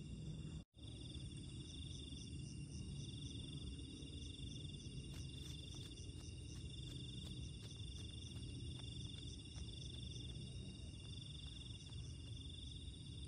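Night insect chorus: crickets trilling steadily in several high, finely pulsing tones over a low rumbling hiss. The sound cuts out for an instant under a second in.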